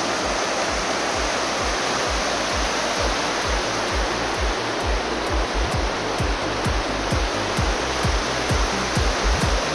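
Fast glacial river rushing over its rocky bed in a steady roar. Background music with a steady low beat plays under it and grows more prominent toward the end.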